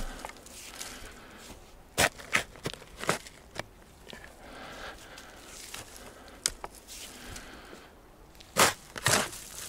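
Shovel cutting and scraping into sandy, root-laced forest soil while digging a ditch. There are short sharp chops and scrapes: about five in quick succession from two to four seconds in, one more in the middle, and the two loudest near the end.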